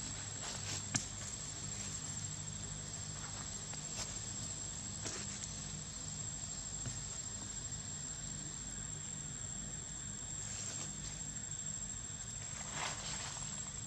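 Insects trilling steadily at a high pitch over a low steady hum, with a few faint short rustles.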